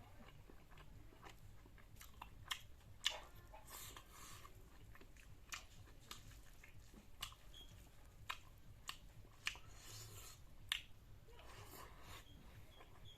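A person chewing a mouthful of kidney beans with perilla seed chutney, with wet smacks and sharp mouth clicks at irregular intervals, the loudest about three seconds in.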